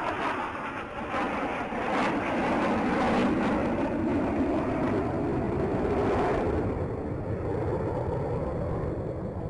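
Jet noise from the Black Eagles' T-50B jets flying past. The roar drops in pitch over the first few seconds, and its hiss thins out after about six seconds as they move away.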